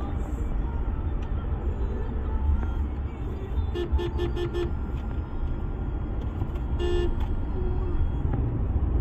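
Steady low road and engine rumble inside the cabin of an armored Toyota Hilux Conquest pickup driving in traffic. A vehicle horn outside gives four quick beeps about four seconds in and one more short beep near seven seconds.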